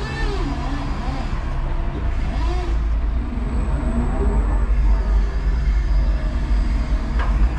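A 5-ton electric forklift truck moving with a load on its forks: a steady low rumble with a faint wavering whine over it.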